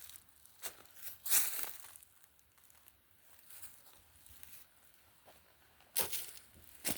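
Footsteps crunching and scraping on dry ground and debris, a few irregular steps with the loudest about a second and a half in and two sharper ones near the end.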